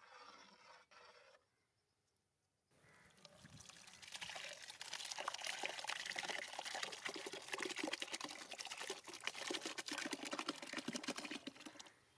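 Liquid being poured and trickling, starting about three seconds in and running on steadily until shortly before the end.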